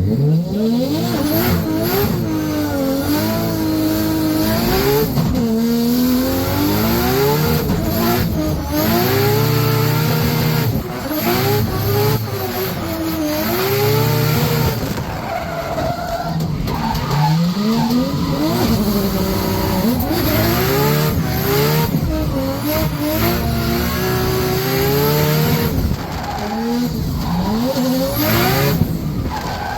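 RB26DETT twin-turbo straight-six in a BMW E92 M3 revving hard through a drift run, its pitch rising and falling over and over with gear changes and throttle lifts, while the tyres skid and squeal.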